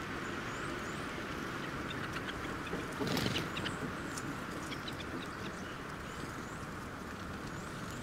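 Faint, thin, high bird call notes from small songbirds now and then, over a steady background hum, with a brief rustle about three seconds in.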